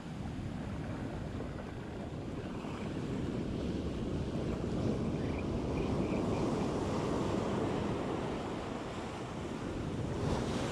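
Ocean surf washing in over the shore, swelling louder partway through as a wave runs up, with wind buffeting the microphone. A sharp knock comes near the end.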